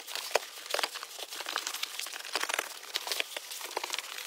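Upholstered mattress cushions being shifted and laid into place to turn the dinette into a bed: irregular rustling of fabric with soft knocks and clicks.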